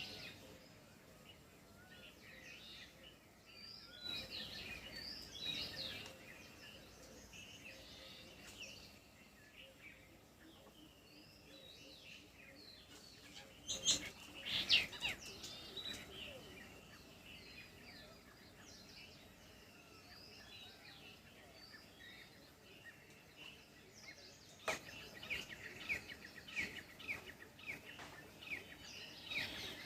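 Several wild birds chirping and singing, short twittering notes and whistled phrases, with louder bursts of calls about halfway through and a quick run of repeated chirps near the end, over a faint background hiss.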